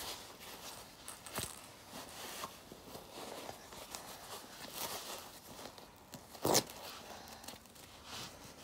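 Pocket cloth nappy being fitted and fastened: fabric rustling and the scratchy rasp of its Velcro hook-and-loop tabs, with a short, louder rip about six and a half seconds in.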